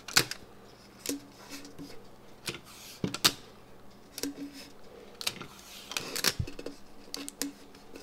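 Heat-resistant tape pulled from a desktop tape dispenser, torn off and pressed onto sublimation paper wrapped around a water bottle: scattered sharp clicks and short scratchy rips of tape, two of them longer, about three and six seconds in.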